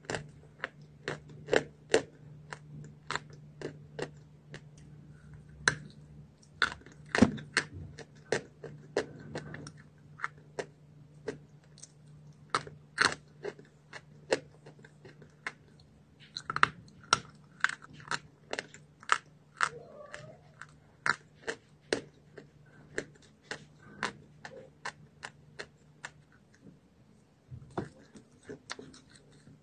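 A person biting and chewing pieces of chalk: a run of short, sharp crunches, about one or two a second, over a steady low hum.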